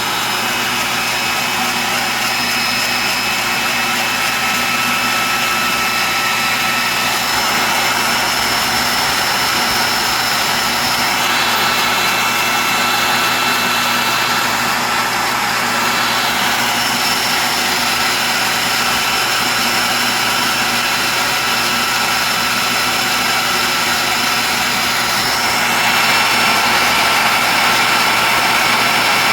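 Dumore tool post grinder running at high speed, its small stone grinding the jaws of a three-jaw lathe chuck on a light feed pass: a steady high whine over a dense grinding hiss, a little louder near the end.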